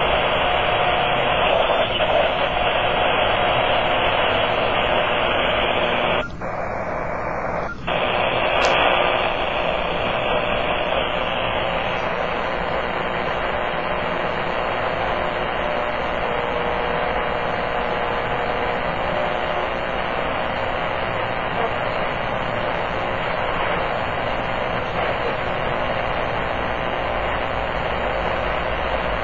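Kenwood TS-480 HF transceiver receiving in AM mode, its speaker giving a steady, dense static noise across the band. This is powerline RFI interference. The noise drops out briefly about six seconds in as the radio is retuned from 40 metres to 80 metres, then comes back just as steady.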